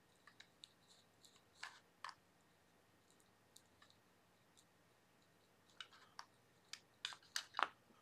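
Faint scattered clicks and light knocks of hands handling a small plastic toy gear motor and a hot glue gun on a board, with a few louder knocks near the end.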